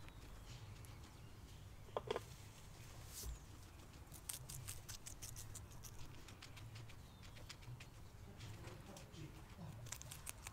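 Guinea pig crunching and chewing a slice of raw yellow capsicum (bell pepper): clusters of small crisp bite clicks about four seconds in and again near the end. A short pitched squeak about two seconds in is the loudest sound.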